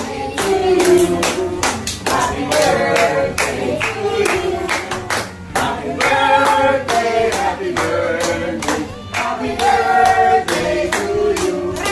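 A small group of adults and children singing a birthday song together, clapping along in time.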